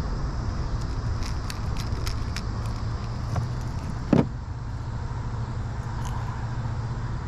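A steady low rumble with a run of light clicks in the first couple of seconds and a single knock about four seconds in.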